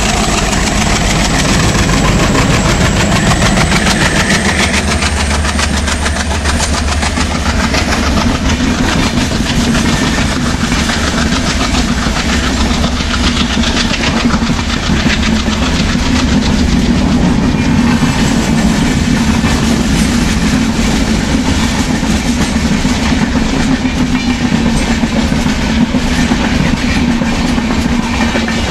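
Twin ALCo diesel locomotives with ALCo 251 sixteen-cylinder engines chugging under power as a train runs by, with wheels clattering steadily over the rail joints.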